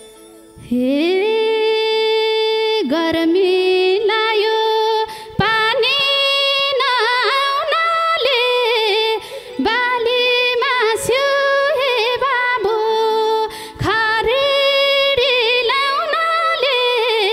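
A woman singing a Nepali lok dohori folk melody solo. Her voice comes in about a second in on a long held note that slides upward, then runs on in ornamented, wavering phrases with short breaths, with little instrumental backing.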